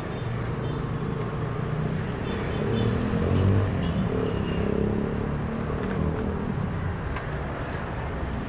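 A motor vehicle engine running steadily, with a few quick ratchet-wrench clicks between about three and four and a half seconds in.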